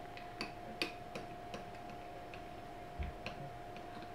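A spoon clicking against a glass bowl at irregular intervals while thick slime is stirred in it, with a duller bump about three seconds in. A steady faint hum runs underneath.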